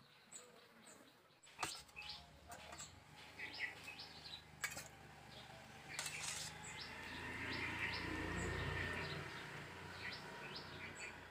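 Small birds chirping repeatedly, with three sharp clinks of a steel ladle against a steel bowl of fish curry, and a low rumble that swells in the second half.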